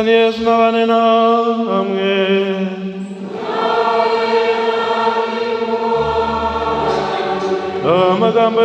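Church choir singing, holding long chords that change every couple of seconds.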